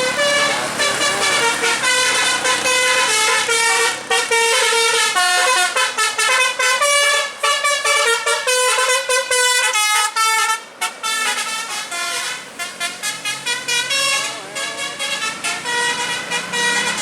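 Tour bus's Basuri 'telolet' multi-tone horn playing a tune of stepped notes, held notes at first, then a quick run of short staccato notes after about ten seconds.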